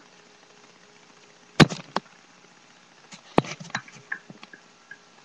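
Hard plastic K'nex gun pieces clicking and knocking as the gun is handled. A sharp clatter comes about a second and a half in, then a run of lighter ticks and clicks.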